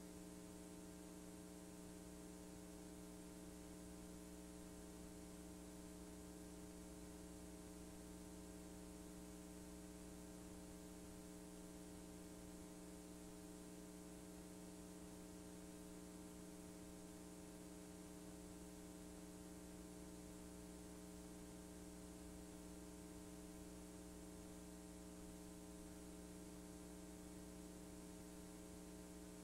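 Near silence: a faint, steady electrical mains hum with light hiss above it, from a blank stretch of digitized VHS-C tape.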